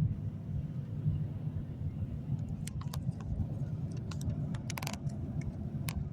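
Steady low rumble of a car driving, heard from inside the cabin, with a handful of light clicks and rattles in the second half.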